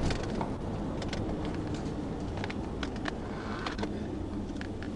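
Police patrol car running, a steady low rumble of engine and road noise, with scattered light clicks.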